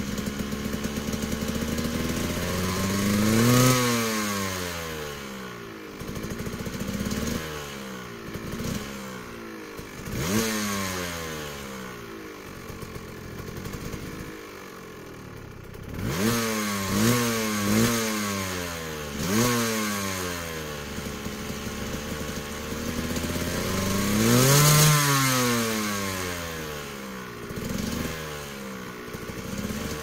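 Two-stroke dirt bike engine idling and being revved over and over, its pitch rising and falling with each throttle blip; some blips come in quick succession, and two longer revs peak about 4 seconds in and near the end.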